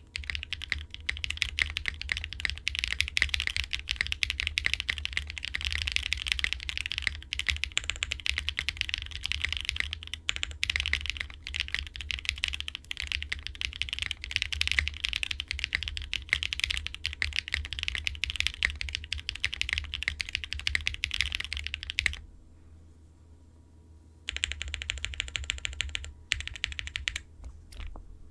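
Fast typing on a Wind x65 mechanical keyboard with stock Red Jacket linear switches, a POM plate and ABS Cherry-profile keycaps: a dense run of keystrokes. It stops for about two seconds near the end, then resumes.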